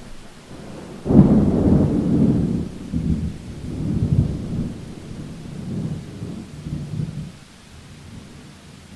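A thunderclap breaks suddenly about a second in and rolls on as low rumbling that swells several times before dying away after about seven seconds, over steady rain.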